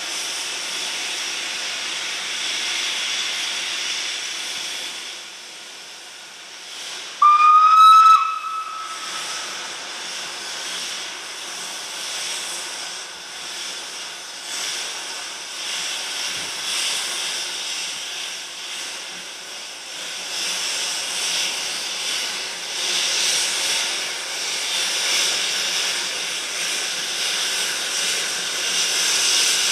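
Narrow-gauge steam tank locomotive hissing steam, then one loud whistle blast about seven seconds in, lasting about a second and rising slightly in pitch as it starts. The locomotive then starts away with its train, the steam hiss and pulsing exhaust growing louder as it draws near.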